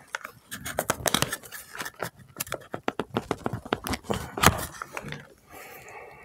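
Plastic makeup palette compact being handled and worked open by hand: a quick, uneven run of small clicks, taps and scrapes, with one louder click about four and a half seconds in.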